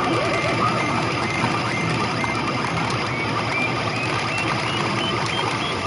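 P Fever Karakuri Circus pachinko machine playing its electronic effect sounds during an animated reach sequence, with a run of short beeps stepping upward in pitch through the middle, over the steady din of a busy pachinko parlour.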